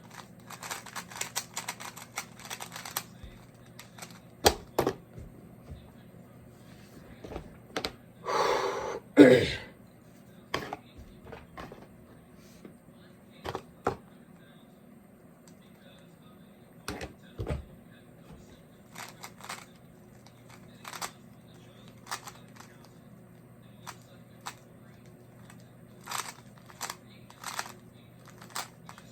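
Plastic Rubik's cube layers being turned: a quick burst of clicking turns at the start, then scattered single clicks and short runs of turns. About nine seconds in there is a louder, longer sound with a falling pitch.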